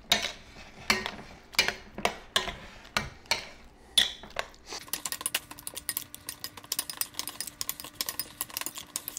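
Metal spoon stirring a thick ricotta and wheat berry filling in a glass mixing bowl, clinking and scraping against the glass. The strokes come slower and heavier for the first few seconds, then turn into quicker, lighter clicks about five or six a second.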